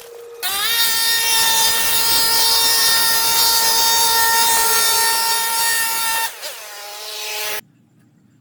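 A power tool's motor running at high speed, a loud steady whine. It spins up about half a second in, dips briefly near the six-second mark, then cuts off suddenly.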